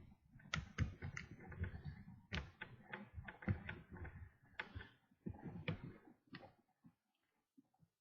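Lock pick and tension wrench clicking and scraping in the keyway of a Master Lock No. 3 laminated padlock being single-pin picked. Irregular clicks and taps, busy for about six seconds, then thinning to a few faint ticks.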